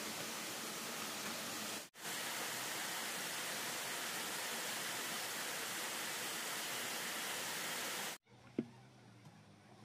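Steady, even rushing noise, broken by a sharp dropout about two seconds in and cut off abruptly about eight seconds in. After it comes a much quieter stretch with a single click and a faint low hum.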